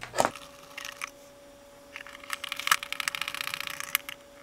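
Small hardware parts handled on a workbench: a sharp click near the start, then a rapid run of small clicks and rattles for about two seconds.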